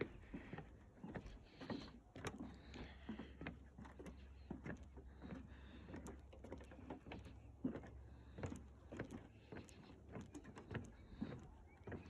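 Footsteps on wooden boardwalk planks, a string of soft knocks at walking pace, with a faint low rumble underneath.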